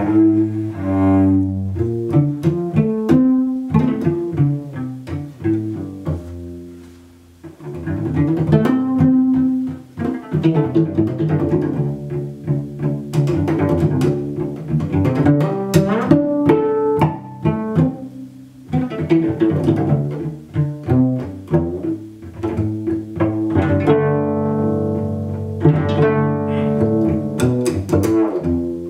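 Solo cello played unaccompanied. It opens with bowed notes, and after a brief drop about seven seconds in it turns to a long run of plucked pizzicato notes.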